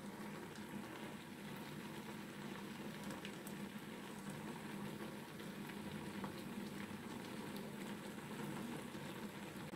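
Okro stew simmering in a pan under a freshly added layer of jute mallow leaves: a soft, steady bubbling with a few faint small pops.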